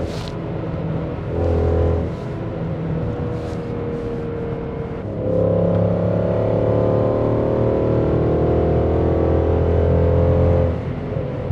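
Mercedes-AMG M156 6.2-litre V8 in an E63 AMG with long-tube headers and a Stage 2 tune, heard while the car is driven. The exhaust note swells about five seconds in, holds for several seconds, then falls away shortly before the end.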